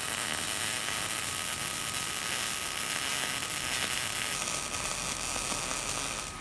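MIG welding arc running steadily along a steel sheet seam: a continuous crackling sizzle, with a thin steady whine underneath.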